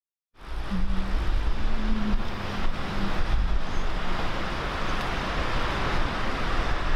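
Street ambience with steady road-traffic noise and a strong low rumble, fading in just after the start; a faint low hum runs through the first three seconds.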